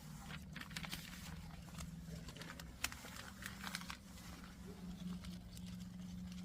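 Irregular crinkling and rustling, thickest in the first few seconds, over a steady low hum.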